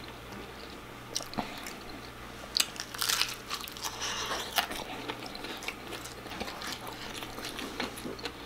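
A person eating close to the microphone: crunchy bites and chewing of crispy fried food, with the loudest crunches about three seconds in.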